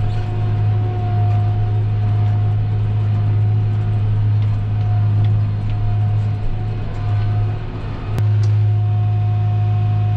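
Tractor engine running steadily under load, heard from inside the cab, with a steady whine over the low drone. The engine note dips briefly near the end, then picks back up with a click.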